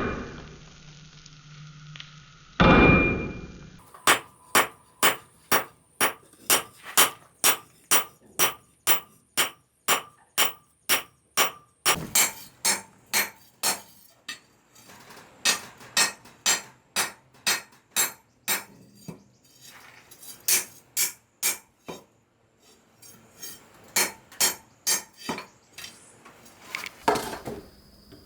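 Hand hammer forging scrap steel on an anvil: sharp metallic blows in a steady rhythm of about two a second, with a short break about two-thirds of the way through. Two heavier, ringing blows come first.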